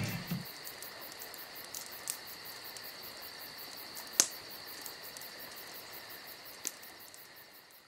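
Electronic background music stopping in the first half second, leaving a faint steady high-pitched chirring with three soft clicks, fading out near the end.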